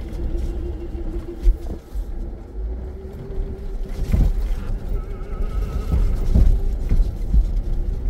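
Cabin sound of a 2021 Jeep Grand Cherokee Trailhawk on all-terrain tyres driving a rough dirt track: a steady low rumble of engine and tyres, with four sharp knocks and thumps as it jolts over bumps.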